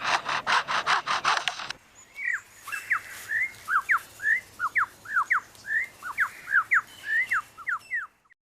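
Superb lyrebird mimicking a chainsaw: a fast rasping pulse, about seven strokes a second. After about two seconds it switches to a quick run of whistled notes sweeping up and down in pitch. These stop abruptly about eight seconds in.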